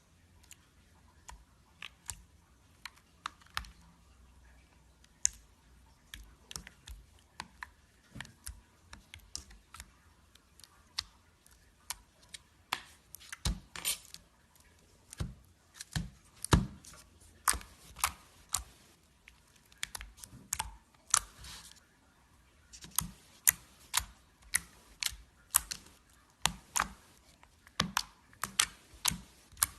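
Slime being squeezed and poked by hand, giving irregular sharp sticky clicks and pops, sparse at first and louder and more frequent from about halfway through.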